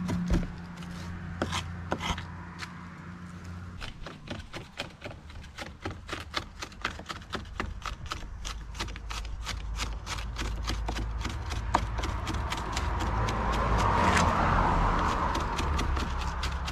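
Kitchen knife chopping onion, scallion and peppers on a wooden cutting board: a long run of quick, even knife strikes on the wood. A louder rubbing scrape swells up about fourteen seconds in.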